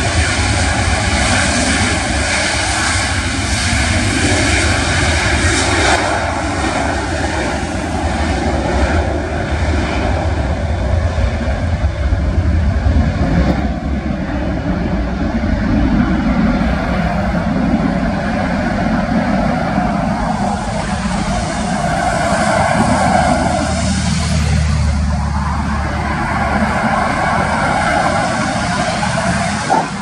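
Boeing 737 twin CFM56 jet engines at takeoff power during the takeoff roll and lift-off: a loud, steady jet noise with a deep rumble underneath.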